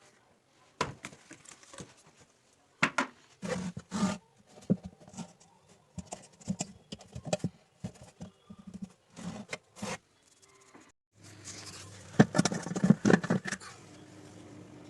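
Irregular clicks and knocks of hard parts being handled and tapped. About eleven seconds in, an electric motor starts with a steady hum and loud rattling for a couple of seconds, then settles into a steady hum.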